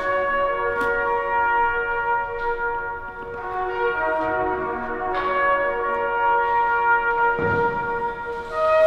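Composed music of layered, sustained trumpet notes: several pitches held at once and overlapping, with new notes entering every second or so. A dull low thump comes about seven and a half seconds in.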